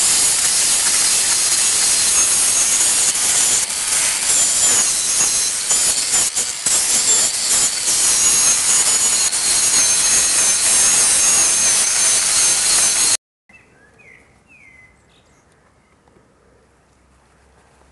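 Angle grinder with a sanding disc running against carved wood, a steady high whine over harsh rasping as the surface is smoothed. It cuts off abruptly about 13 seconds in, leaving a quiet background with a few faint chirps.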